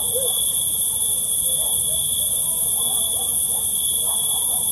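Crickets chirping in an unbroken steady trill at one high pitch, over a bright high hiss of insects. Faint short lower calls of other animals come and go.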